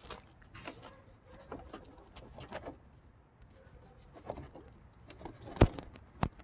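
A rusted, corroded battery terminal clamp being wiggled and twisted on its post: scattered small clicks and scrapes, with two sharp knocks near the end. The clamp is seized onto the post by corrosion and does not come off.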